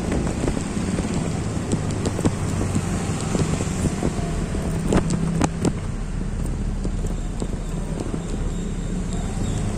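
Street traffic: motor vehicle engines running with a steady low hum, with a few sharp clicks about five seconds in.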